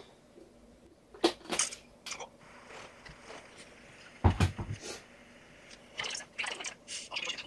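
A few soft knocks and clicks from things handled on a desk, with one heavier low thump about four seconds in.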